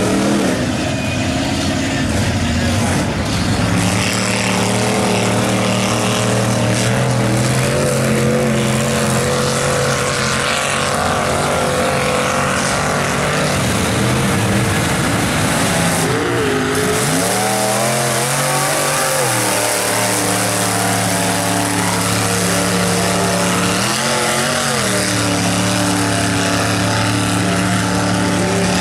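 Lifted mud trucks' engines running hard through a mud pit, one truck after another. The engine note holds steady for long stretches, then swings up and down as the throttle is worked, a few times near the middle and once more about two thirds of the way through.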